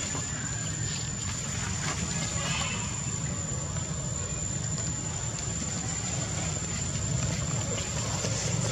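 Steady outdoor background noise: a low rumble with a constant thin high tone over it, and a faint brief high squeak about two and a half seconds in.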